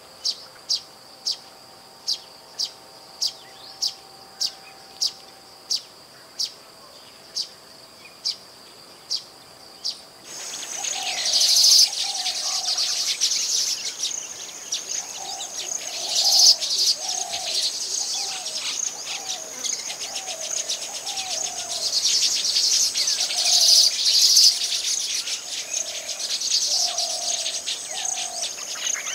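Baya weavers calling. For the first ten seconds one bird gives short, evenly spaced high chirps, about one every half second to second. Then a dense, buzzing chatter of several birds starts, with a repeated lower note underneath.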